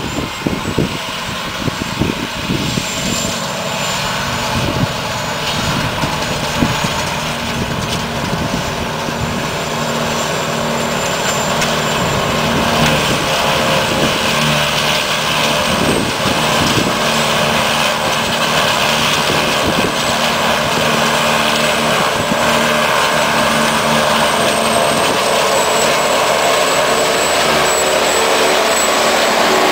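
New Holland 2025 self-propelled forage harvester with its own silage hopper running steadily while harvesting grass silage, growing louder as it drives closer. Wind buffets the microphone in the first several seconds.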